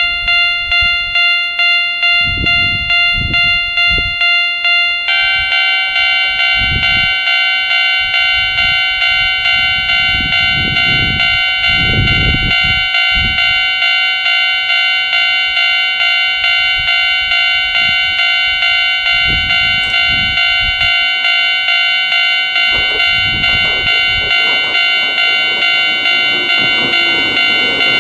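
Railway level-crossing alarm, the old standard Kita-Ōji-type electronic bell, dinging about twice a second. For the first five seconds it sounds a single tone. Then a second, slightly higher tone joins and the two clash in a dissonant ding that drifts gradually lower in pitch, a sign of the ageing alarm unit degrading. Gusts of wind buffet the microphone underneath.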